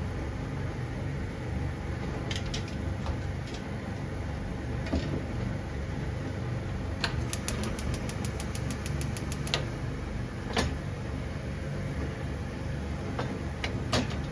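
Kitchen preparation sounds over a steady low hum: scattered sharp taps and knocks, with a quick, even run of about a dozen clicks a little past the middle.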